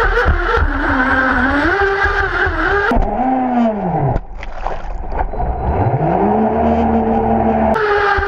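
Twin-motor RC speedboat running at speed, heard from on board: a steady motor whine over the rush of spray. About three seconds in, the boat launches off the water and the spray noise cuts out while the motor pitch drops away, then climbs back and holds. The water rush returns suddenly near the end as the boat lands back on the river.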